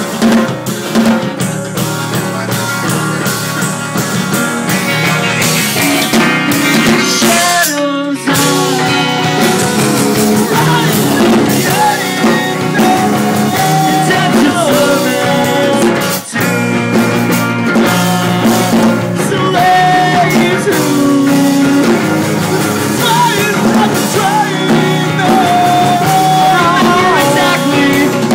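A rock band playing loudly, live: a drum kit and guitars, with a singing voice.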